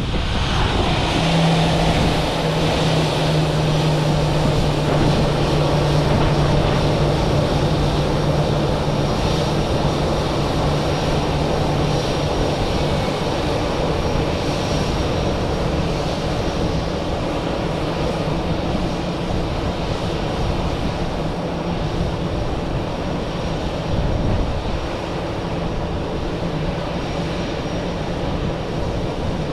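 Airbus A319's twin CFM56 turbofan engines at high takeoff power, a loud steady jet noise with a low hum underneath. The hum is strongest for about the first twelve seconds, and the whole sound eases slowly toward the end.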